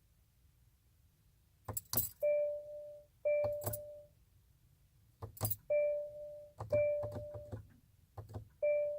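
Car keys jangling and clicking, with the car's electronic warning chime sounding a steady mid-pitched tone in short spells of under a second, about once a second from about two seconds in.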